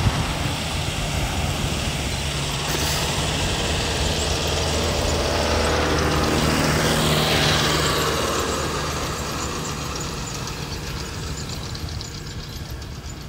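A low engine drone passing by, swelling to its loudest about seven seconds in and then slowly fading away.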